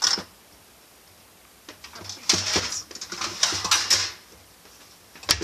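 Rummaging in a low kitchen cupboard for cupcake liners: rustling and clattering of packets and kitchenware for about two seconds in the middle, then one sharp knock near the end.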